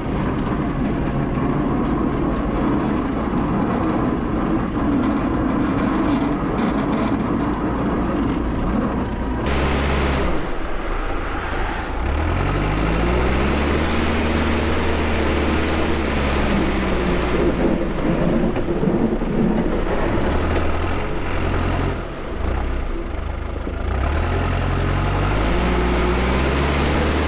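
Heavy-equipment diesel engine working hard while plowing snow, its pitch rising and falling repeatedly as it revs up and down. The sound changes abruptly about nine seconds in.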